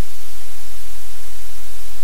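Loud, steady hiss with a low hum underneath: static and electrical noise on a live camera's audio feed.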